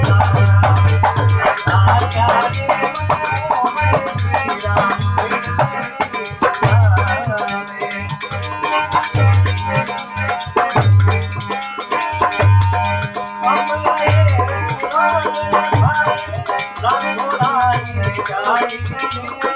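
Rajasthani devotional bhajan music: a wavering melody over a deep drum beat about every second and a half, with a shaker-like rattle.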